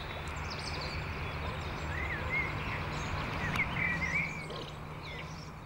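Small birds chirping and singing in short rising and falling calls, several in quick succession around the middle, over a steady low outdoor hum.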